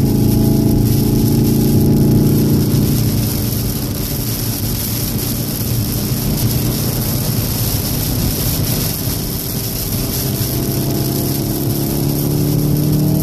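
2014 VW Golf VII R's turbocharged 2.0-litre four-cylinder heard from inside the cabin, strongest in the first few seconds, softer through the middle, then rising in pitch as the car accelerates near the end. A steady hiss of tyres and spray on the soaked track runs underneath.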